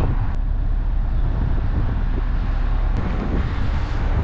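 Lorry engine running steadily, powering a lorry-mounted crane as it lifts a load, with two faint clicks, the first about a third of a second in and the second near three seconds.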